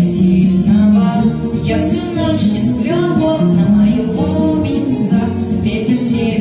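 A song: a voice singing long, held notes over instrumental accompaniment.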